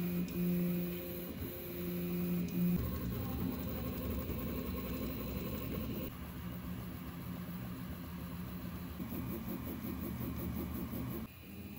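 Original Prusa i3 3D printer running a print: its stepper motors drive the print head and bed with a steady mechanical whine whose pitch shifts a few times.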